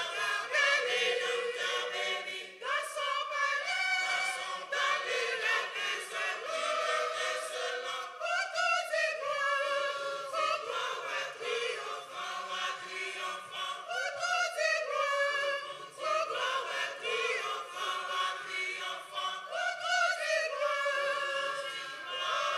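Mixed church choir of men and women singing a hymn together in harmony, long sung notes that rise and fall with the phrases.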